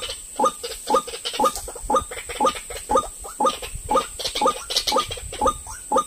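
White-breasted waterhen calling: a croaking 'ruak' note repeated steadily about twice a second, each note rising in pitch.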